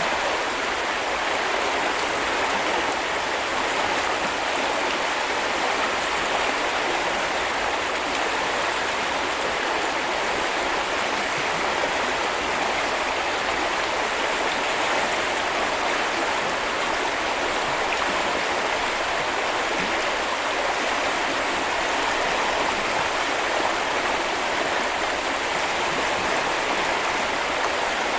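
River water flowing over stones in a steady, even rush.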